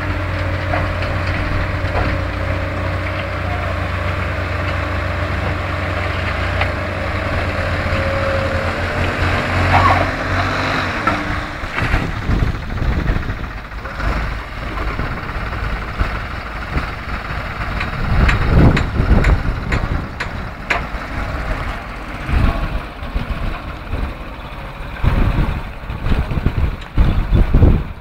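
New Holland 3630 tractor's three-cylinder diesel engine running as its front loader works. It drones steadily for the first half, then turns uneven with several loud low thumps and gusts.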